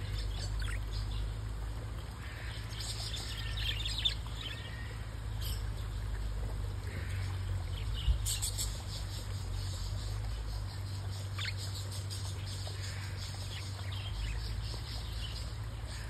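Budgerigars chirping now and then in short, scattered calls over a steady low hum, with a sharp tap about four seconds in and another about eight seconds in.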